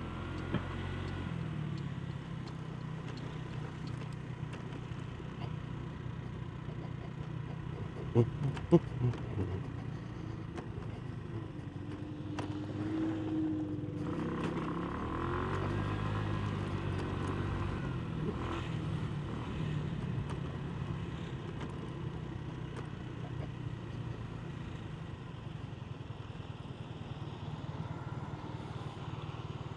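Genuine Buddy 125 scooter's single-cylinder four-stroke engine running on the move, its pitch rising and falling with speed. A few sharp knocks stand out about eight to nine seconds in.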